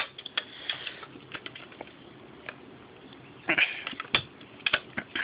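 Scattered light clicks and taps, with a short rustle about three and a half seconds in.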